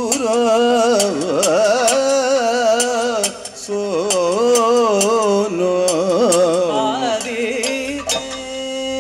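Kathakali music: male vocalists singing a slow, heavily ornamented melody that bends and wavers in pitch, over regular sharp percussion strokes. Near the end the voice settles into a long held note.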